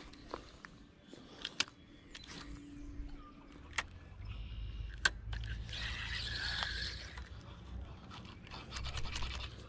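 Handling sounds of a spinning fishing reel and rod: scattered sharp clicks and small scrapes from the reel's bail and handle. A low rumble joins about four seconds in.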